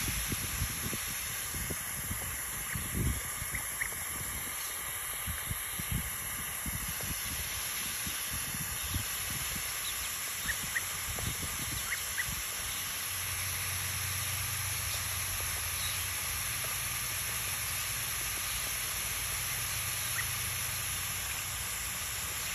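Garden hose spray nozzle on a mist setting, spraying water in a steady hiss, with a few soft low bumps in the first several seconds.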